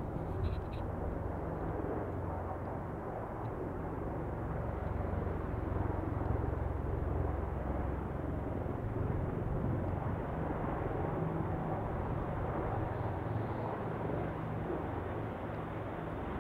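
AH-64 Apache attack helicopter flying low toward the listener, its rotor and engine noise steady and continuous, mixed with strong wind buffeting the microphone.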